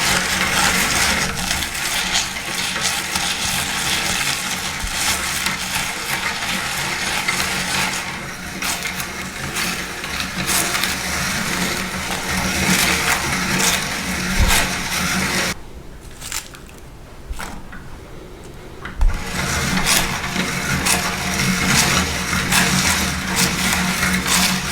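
Electric meat grinder running with a steady motor hum under the crackling crunch of dry food being ground. About 16 seconds in, the sound drops away for about three seconds, then comes back with a knock and carries on.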